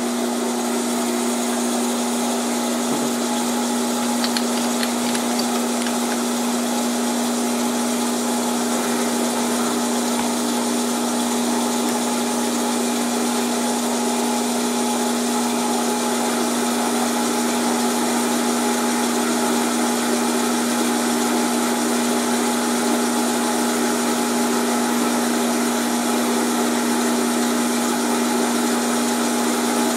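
Grizzly G0602 bench lathe running with its spindle turning a steel bar, a steady hum with one strong low tone. A tangential shear tool is taking a light finishing cut on 12L14 leaded steel, lubricated with lard and moly-D.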